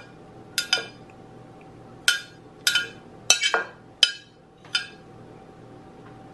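A metal spoon clinks against ceramic as carrot chunks are scraped out of a baking dish into a slow cooker. There are about ten sharp, ringing clinks in irregular clusters, and they stop about five seconds in.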